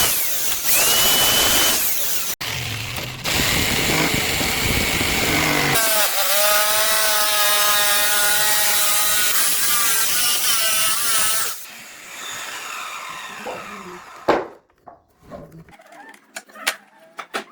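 Power tools running on wood in several short, abruptly cut segments, with a steady motor whine through the middle. Then the level drops to a few scattered knocks and clicks near the end.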